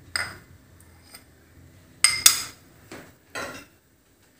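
A spoon and small glass bowl clinking against a pan as oil is tipped in: four short clinks, the loudest a quick pair about two seconds in and a softer knock near the end.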